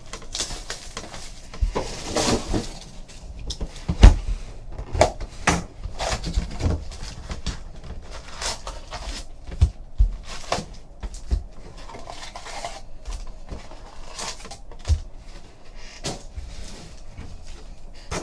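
Trading-card packaging being handled and opened: crinkling plastic and paper wrappers, tearing, and irregular knocks of cardboard, with one sharp thump about four seconds in.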